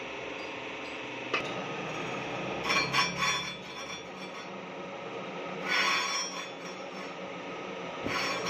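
Crankshaft grinding machine running with a steady hum, its large grinding wheel rasping against metal in three short bursts a few seconds apart, with a single click about a second in.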